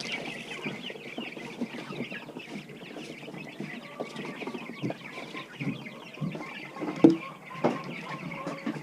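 A flock of chickens and turkeys clucking and peeping in a busy, continuous chatter at feeding time, with a few sharp knocks scattered through it, the loudest about seven seconds in.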